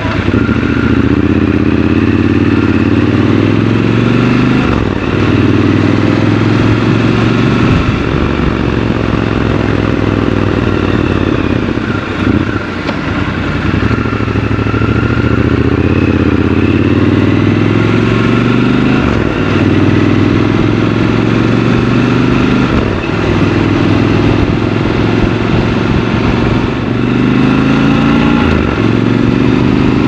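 Triumph Scrambler 1200 XC's 1200 cc parallel-twin engine heard from the saddle while riding, its revs climbing, falling back and climbing again several times.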